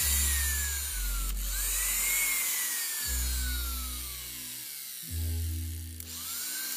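ALSGS power feed's electric motor briefly switched on with the lever. Twice a switch clicks and the motor whines up, then slowly winds down in pitch as it coasts, with a first run-down already fading at the start.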